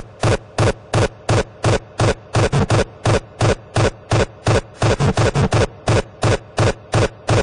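Heavily distorted hardcore kick drum pounding about three times a second, with a few quick doubled hits, each kick carrying a buzzing tone.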